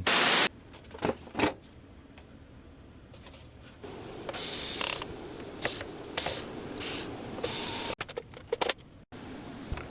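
Hand disassembly of a PlayStation 5: scattered mechanical clicks, ratcheting and scraping of tools and plastic parts, opened by a short loud burst of noise.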